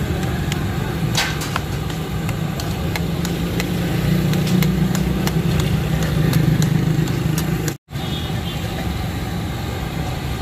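Steady low hum of idling engines and street traffic, with a metal ladle clinking and scraping against a large iron tawa as chicken is stirred. The sound cuts out for an instant about three-quarters of the way through.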